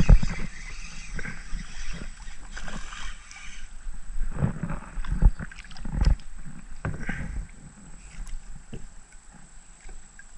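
Irregular knocks, thumps and rubbing from handling on a kayak as the angler works a spinning rod and reel. The loudest thumps come right at the start and about six seconds in, with a few more just before.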